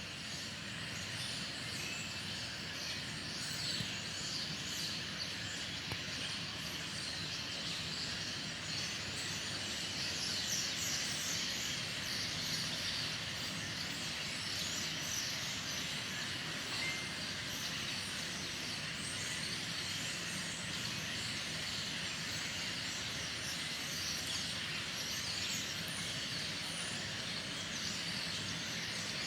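A large flock of birds calling all at once, a dense, continuous twittering, over a low steady rumble.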